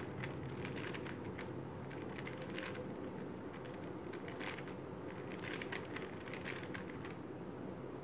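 Plastic 3x3 speed cube turned fast with finger tricks: quick runs of light clicking as the layers turn, in bursts with short pauses, over a steady low hum.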